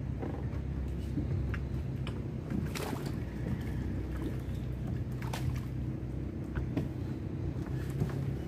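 Steady low drone of a running motor, with scattered sharp knocks and clicks as an outrigger fishing boat and its gear are handled.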